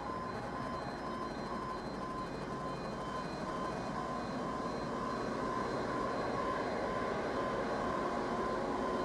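Class 66 diesel locomotive's two-stroke diesel engine working under power as it approaches with a container train, a steady drone that grows louder over the second half. A faint repeating beeping tone sounds beneath it.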